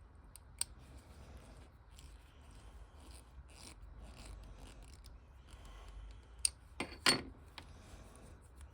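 Soft scraping and rubbing from small hand work, broken by a few sharp clicks, the loudest a cluster about seven seconds in.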